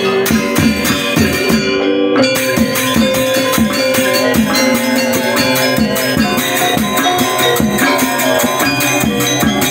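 Balinese gamelan gong ensemble playing: bronze metallophones ringing with kendang drums beaten with a stick and ceng-ceng cymbals clashing in a fast, even rhythm. The high cymbal shimmer breaks off briefly about two seconds in.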